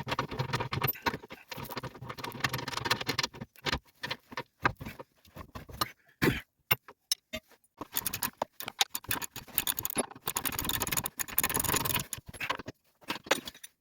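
Metal hand tools clicking and clattering as a wrench or ratchet is worked on car suspension bolts: two long runs of rapid clicks, one at the start and one about eight seconds in, with scattered knocks between.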